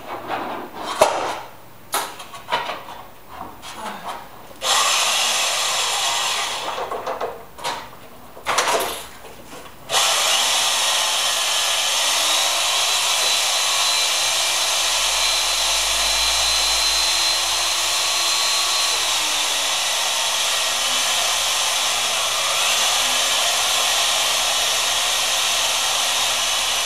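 A few knocks and clatter of handling, then a motor-driven machine with a loud, steady hiss. It cuts in and out twice, then runs on from about ten seconds in, its faint whine rising and falling in pitch.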